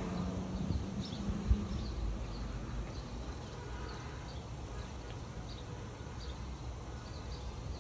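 Eastern gray squirrel gnawing on a peanut: small, irregular high ticks of crunching, over a low rumble with one thump about a second and a half in.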